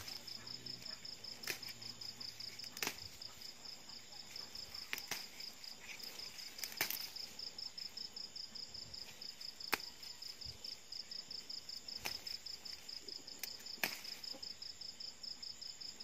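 A cricket trilling steadily in a rapid, even pulse, with a scattering of short sharp snaps as holy basil stems are plucked by hand.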